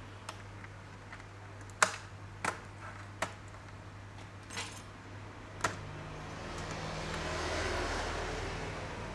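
Scattered sharp clicks and knocks of hands working on a laptop's plastic case and parts, about six in the first six seconds, the loudest about two seconds in, over a steady low hum. Near the end a broad rush of noise swells up and fades over a few seconds.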